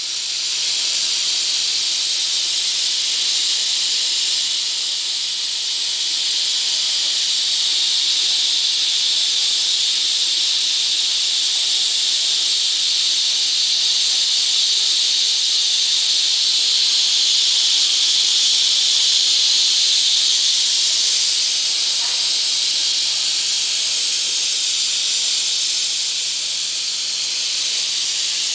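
Steady, loud hiss of compressed air rushing through an adjustable air-atomizing spray nozzle as it sprays a fine mist.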